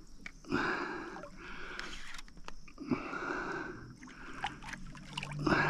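A hooked fish splashing and thrashing at the water's surface beside the boat, in three separate bursts of about a second each.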